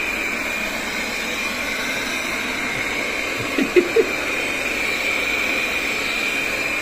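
Ultenic T10 robot vacuum cleaning, its suction fan and brushes running with a steady whir and a constant high whine. About four seconds in there are two brief, louder sounds.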